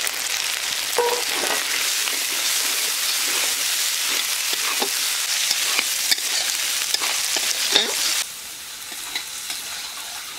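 Chopped tomatoes sizzling in hot oil and spice paste in a metal kadai, stirred with a spatula that scrapes and clicks against the pan. The sizzle drops suddenly to a quieter level about eight seconds in.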